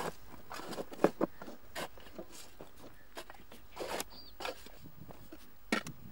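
Irregular scrapes and knocks of shovels digging in dry, sandy soil, the loudest about a second in. A short high chirp sounds about four seconds in.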